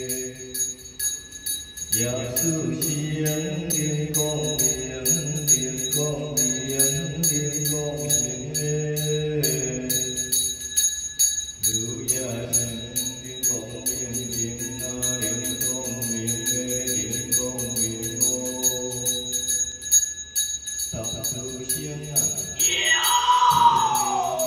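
Taoist ritual chanting sung in long held notes over a hand bell shaken in a steady fast rhythm. The chant breaks off briefly a couple of times, and near the end comes a loud call that falls in pitch.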